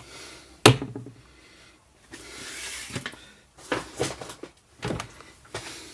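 Tool handling: a sharp click about a second in, a short rustling hiss in the middle, then a few lighter clicks and taps, as a small drill bit is taken from its set and fitted to the drill. The drill motor is not running yet.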